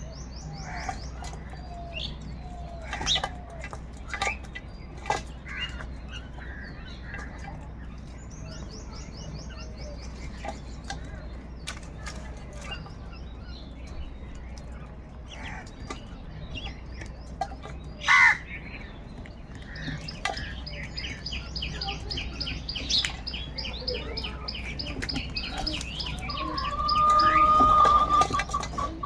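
Crows cawing among small birds chirping in fast high trills. A rooster crows loudly near the end.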